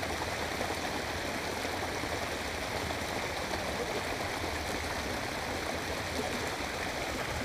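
Water running steadily into a pond over a concrete edge: a continuous, even rushing that does not change.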